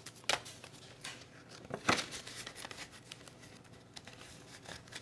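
Paper bills and a plastic cash envelope being handled in a budget binder: soft rustling with a few sharp crinkles, the loudest about two seconds in.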